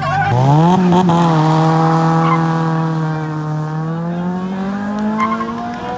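A car engine revs up sharply and is held at high, fairly steady revs for several seconds, climbing a little again near the end.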